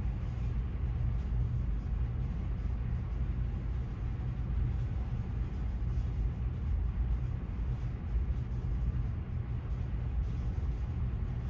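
Steady low rumble of background noise, even throughout, with no distinct knocks or other separate sounds.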